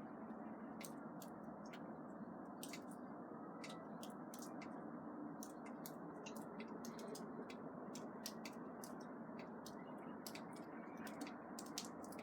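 Water dripping in irregular sharp ticks, about three a second, over a steady low rumble that the recordist could not trace to any plane or jet.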